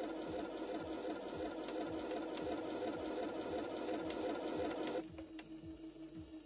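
The Heng Long sound unit in an RC T-34/85 tank plays a simulated engine idle through its small built-in speaker: a steady hum with about three beats a second. The volume drops suddenly about five seconds in.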